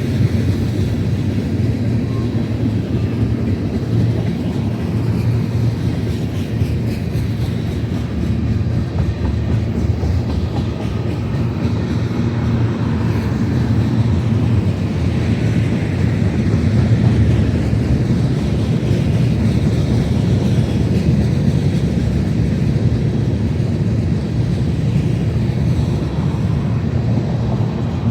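Long BNSF freight train rolling past: a steady low rumble of wheels on rail that swells a little about halfway through.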